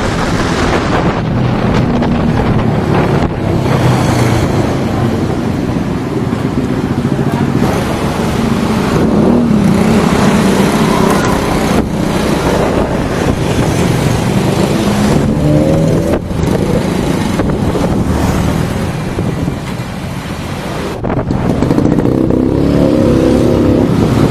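Vehicle engine running on the move, its pitch rising and falling as it speeds up and slows, under heavy wind buffeting on an action camera's built-in microphone. It drops back briefly near the end, then picks up again.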